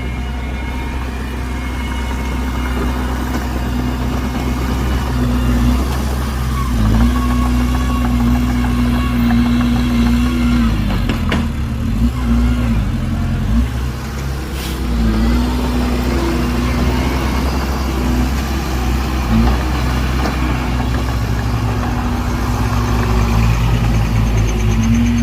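Heavy diesel earthmoving machinery running, its engine pitch rising and falling again and again as it works under load. Two sharp knocks come near the middle.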